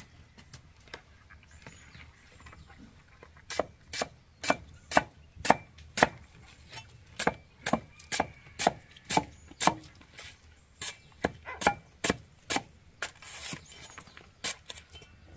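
A cleaver chopping through a green plant stalk onto a wooden block, a steady run of sharp chops about two a second. The chops begin a few seconds in and pause briefly around two-thirds of the way through.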